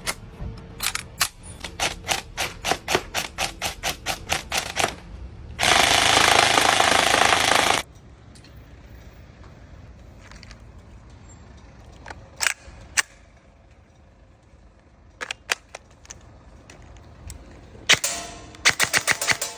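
Airsoft guns being fired: a rapid string of shots, about five a second, for the first few seconds, then a loud continuous burst lasting about two seconds, then scattered single shots and another quick string near the end.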